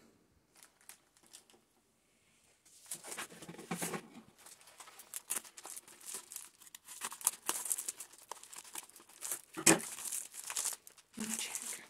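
Plastic bubble mailer being handled, cut with scissors and pulled open: irregular crinkling and rustling that starts about three seconds in, with one sharp, loud crackle near the end.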